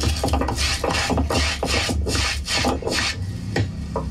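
Rhythmic rasping, scraping strokes, about two to three a second, of food being ground by hand on a grinding stone. The strokes fade out near the end.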